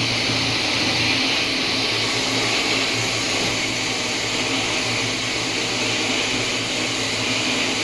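Braiding machines for tasma cord running together, 16- and 32-spindle types: a steady mechanical whirr and hiss over a low hum.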